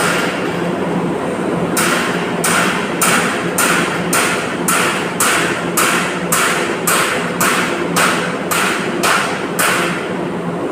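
A hand tool working metal in about fourteen even strokes, roughly two a second, over a steady machine hum.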